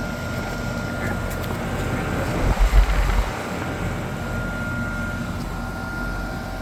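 Heat pump outdoor unit running with a steady hum and a faint high whine. About two and a half seconds in, a brief low rumble is the loudest sound.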